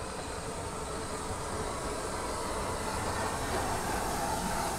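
Steam-hauled heritage train running on the line, a steady rumble and hiss that grows gradually louder.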